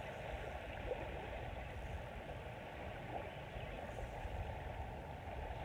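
Steady wind buffeting the microphone over small waves lapping on the shore.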